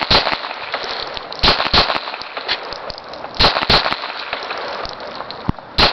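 Shots from a homemade .22 LR pistol built on an MP-654K air-pistol frame: six sharp reports, mostly in close pairs about a quarter second apart, with roughly two seconds between pairs.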